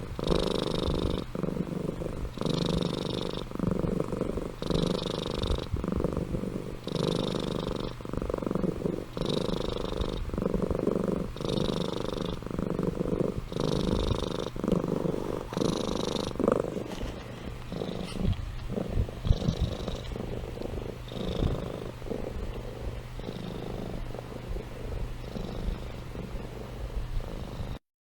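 Domestic cat purring close to the microphone, the purr swelling with each breath about every two seconds. After about sixteen seconds it grows softer and less regular, then stops abruptly near the end.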